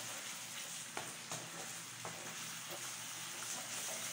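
Chopped tomatoes and tomato paste sizzling steadily in a metal pan while a wooden spoon stirs them, with a few light clicks of the spoon against the pan.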